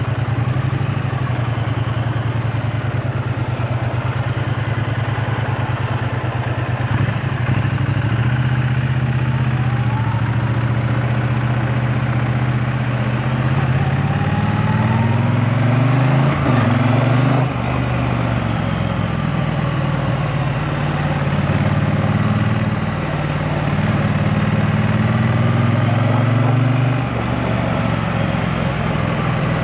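2024 Triumph Bonneville T100's 900 cc parallel-twin engine running, recorded from the rider's seat. It holds a steady low note at first, then climbs in steps as the revs rise and fall through gear changes. It drops off sharply about two thirds of the way in, pulls up again, and backs off near the end.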